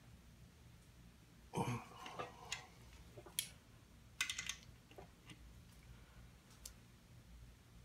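Scattered light clicks and metallic knocks of a ratcheting torque wrench and socket being handled on connecting-rod cap bolts. The bolts are being loosened after torquing to spec so the bearing clearance can be checked. The loudest knock comes about a second and a half in, and there is a quick run of ratchet clicks just after four seconds.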